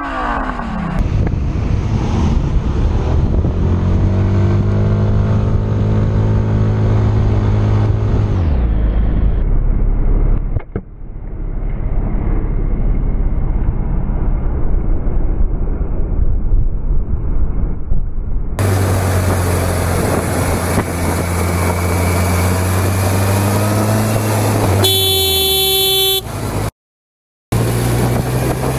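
Motorcycle engines and road noise heard from the rider's camera across several quick cuts. An engine climbs steadily in pitch as it accelerates over the first several seconds. Near the end a car horn blares for about a second.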